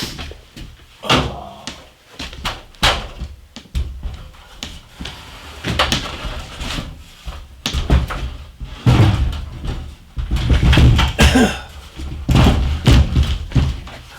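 A run of sharp knocks and thumps, with heavier low rumbling in the second half.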